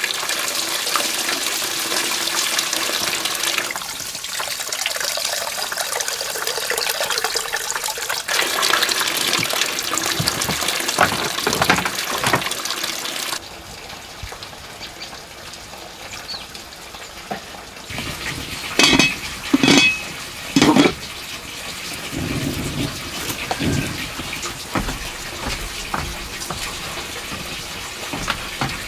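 Water running from a bamboo pipe and splashing into a basin, with rinsing and pouring sounds as a bowl of rice is washed under it; the running water stops suddenly about halfway through. After that it is quieter, broken by three short, loud sounds a few seconds later.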